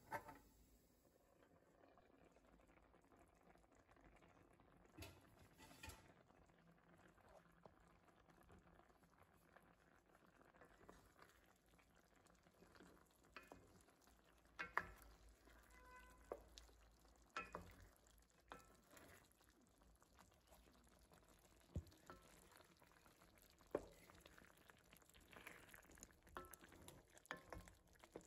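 Faint kitchen sounds: a metal pan lid clinks into place at the start, then a wooden spoon stirs a pan of stew, with scattered light knocks and scrapes against the pan.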